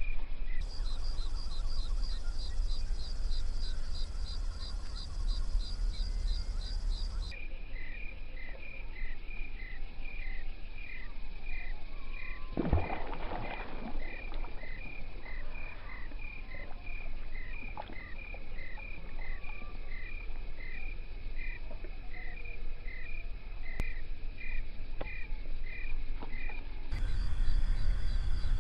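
Pond chorus of steady, even chirps, about two a second, over a low rumble. A splash of water about thirteen seconds in, as a frog moves through the lily pads.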